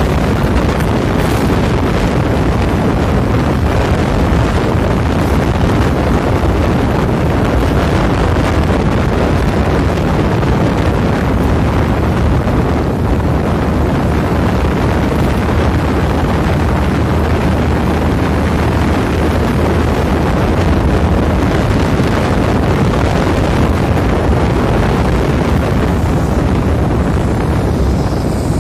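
Steady wind rushing over the microphone while riding along a road, with a vehicle's engine and tyres running underneath.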